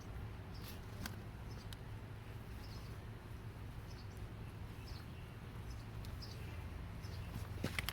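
A small bird chirping in short high notes about once a second, over a steady low hum, with a couple of sharp clicks, the louder ones near the end.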